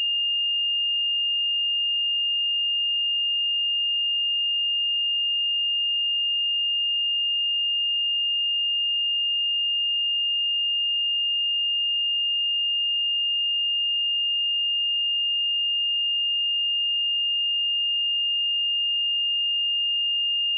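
A pure 2821 Hz sine-wave test tone, one steady high-pitched note held at constant level, for checking speakers and headphones.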